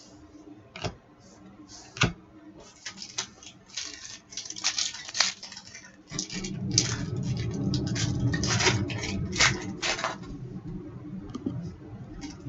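Trading card pack wrapper being torn open and crinkled, with cards handled and shuffled. A couple of sharp clicks come first, then a run of crackling and rustling, loudest through the middle.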